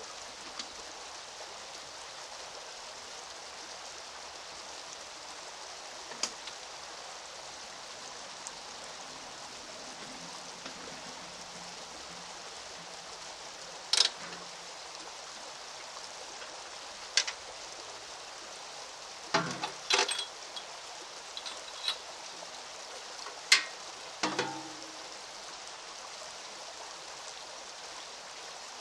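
Steady rushing of a small brook, with a few sharp knocks and clunks in the second half as the small diesel locomotive is handled, the loudest about two-thirds of the way through.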